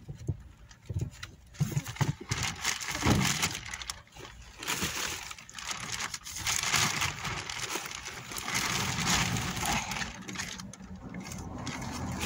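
Thin plastic shopping bags rustling and crinkling as vegetables are handled and packed into them, with a few knocks in the first few seconds.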